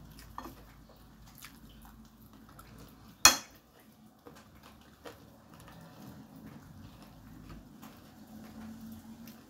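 Metal cutlery scraping and tapping on a glass plate while eating, with one sharp clink about three seconds in.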